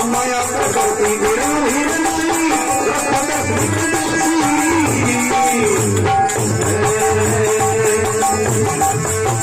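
Rajasthani devotional bhajan music: a wavering melodic line over a steady, even drum beat, with jingling percussion ticking along.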